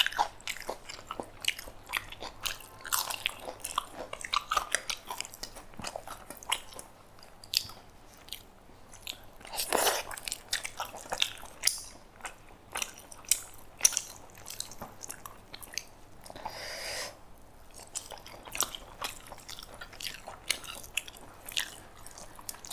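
Eating sounds: biting and crunching with chewing, many short crisp clicks and crackles, as mouthfuls of a thali meal are eaten.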